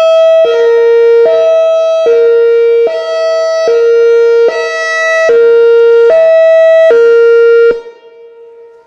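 Whelen Vortex R4 outdoor warning siren sounding its hi-lo signal: a high and a low tone alternating about every 0.8 seconds. It cuts off about three-quarters of the way through, leaving a much fainter low tone.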